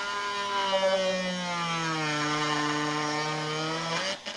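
Handheld rotary tool grinding at a nut on a motorcycle seat pan: a steady motor whine whose pitch sags in the middle as the bit bites under load, then climbs back, stopping briefly near the end.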